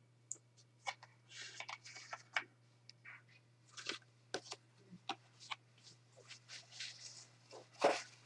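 Faint rustling and scattered light clicks of cardboard flashcards being handled and swapped, with a sharper click near the end, over a steady low electrical hum.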